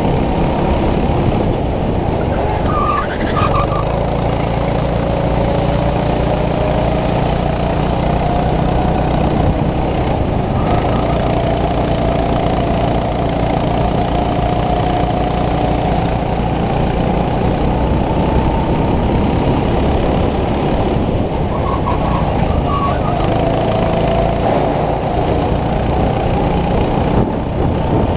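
Racing kart engine running hard on a lap, its pitch dropping as the kart slows for the corners, about three seconds in and again near the end, and climbing back up on the straights.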